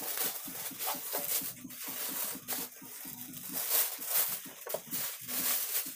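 Thin clear plastic bag crinkling and rustling in irregular crackles as it is pulled off a metal amplifier chassis.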